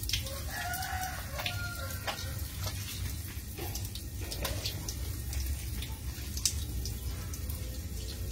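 Water splashing and dripping as a small dog is scrubbed by hand on a wet concrete floor, with scattered short wet slaps. About half a second in, a brief high animal call sounds for under two seconds.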